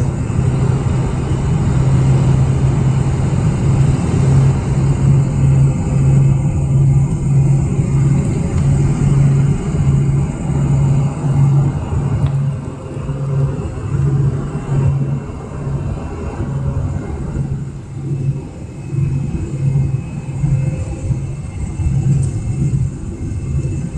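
Cabin noise inside a Boeing 747-400 airliner: a loud, steady rumble of engines and airflow with a strong low hum, easing slightly in level partway through.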